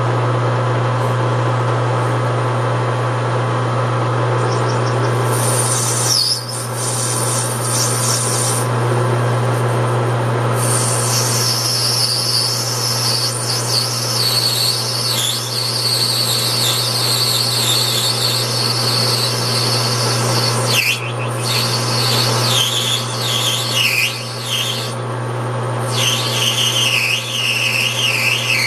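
Metal lathe running with a steady motor hum while a cutting tool works brass, most likely parting off the knob; from about five seconds in, a high, wavering squeal from the tool comes and goes, breaking off briefly several times.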